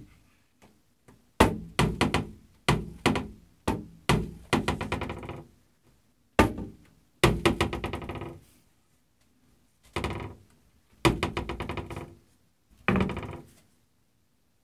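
Bathroom vanity cupboard door knocking and rattling against its frame again and again as a cat paws it open and lets it fall shut: about a dozen sharp knocks in clusters, each with a short rattling ring-out.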